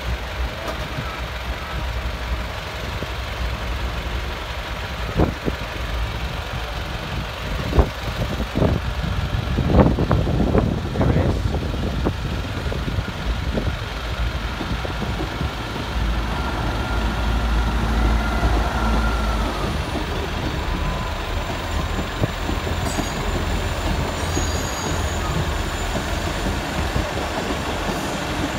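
A South Western Railway Class 159 diesel multiple unit passing slowly over a level crossing, its diesel engines running steadily. Its wheels knock several times over the rail joints in the first half, and a thin squeal sounds briefly a little past the middle.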